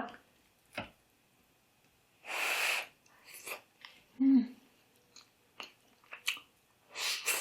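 Close-up sounds of a person eating hot fried fish: wet chewing and small mouth clicks, with a breathy exhale about two and a half seconds in, a short hum of satisfaction a couple of seconds later, and another breath near the end.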